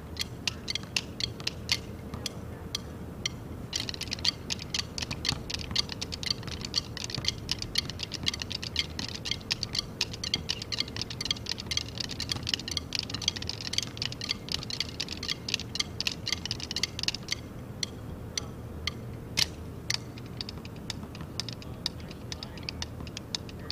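Marching drum line of snare and tenor drums playing fast rhythmic patterns of crisp stick strokes. The patterns pause briefly about three seconds in and again about seventeen seconds in.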